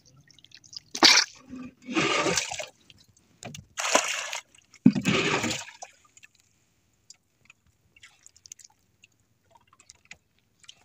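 Sea water splashing and sloshing in four short bursts over the first six seconds, then only faint ticks.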